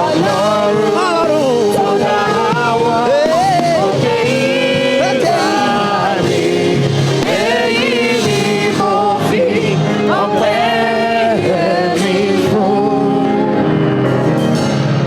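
Gospel choir singing with a live band accompaniment, voices gliding and ornamenting over steady backing.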